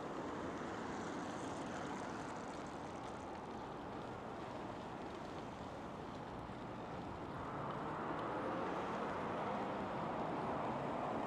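Steady traffic noise from cars on a city street, a continuous hum that grows a little louder in the last few seconds.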